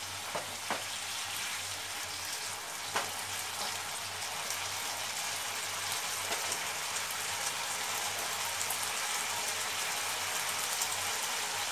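Mushrooms, capsicum and sauce sizzling in a non-stick frying pan over high flame: a steady crackling hiss that grows slightly louder. A few light knocks sound in the first three seconds.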